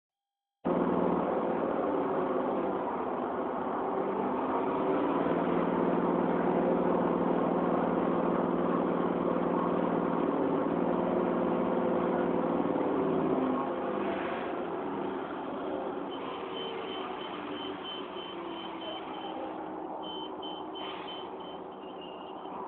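City bus engine running, heard from inside the passenger cabin as a steady low hum that drops off about 13 seconds in. Later comes a rapid series of short high beeps, about three a second, for a few seconds, then again briefly.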